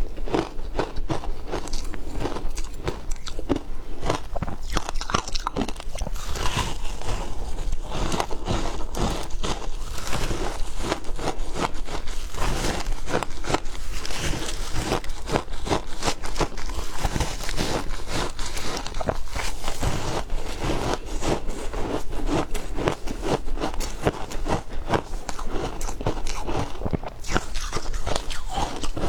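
Frozen ice being bitten and chewed close to the microphone: a continuous run of sharp crunches and crackles.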